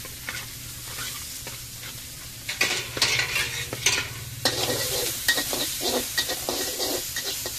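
Yellow egg noodles with pork stir-frying in a wok with a steady sizzle, while a metal ladle scrapes and tosses them against the pan. The scraping strokes grow louder and busier about two and a half seconds in.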